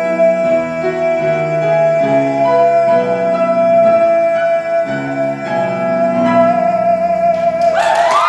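A man singing one long held final note over piano chords that change beneath it. Whoops and cheering break out near the end as the note finishes.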